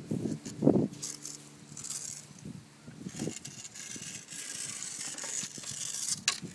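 Sand being scraped and stirred by a toddler with a small toy tool: a gritty, rattling hiss, strongest from about halfway through until just before the end, over a steady low hum. A few dull bumps come in the first second.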